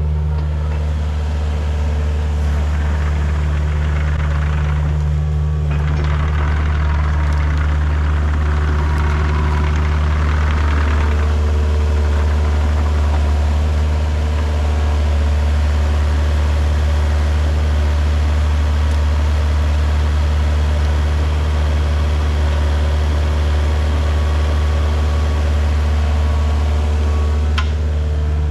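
A compact excavator's diesel engine running steadily with a constant low hum. In the first ten seconds or so, a rougher, hissier layer rides on top of it.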